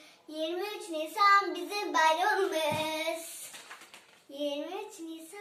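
A young girl singing a Turkish children's song, unaccompanied, in held and gliding notes, pausing for about a second a little past the middle.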